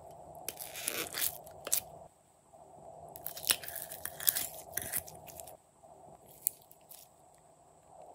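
A thin clear plastic capsule holding glitter slime crackles and clicks as fingers squeeze and pry it open. The crackling comes in two bursts, about a second in and again from three to five seconds, with one more click near the end.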